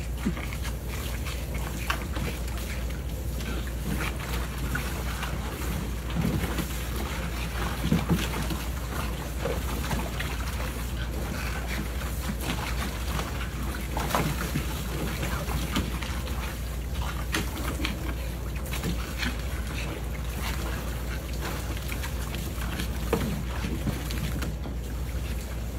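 Water splashing in a plastic kiddie pool as a dog snaps at and leaps through a fountain's jet, in irregular splashes with a few louder ones. Under it, the fountain spray runs steadily and wind rumbles on the microphone.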